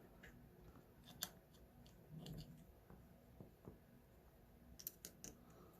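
Faint, scattered clicks and scrapes of a small metal tool working at a padlock's insides, trying to hook and pry out a stubborn part during disassembly; a few quick ticks come close together near the end.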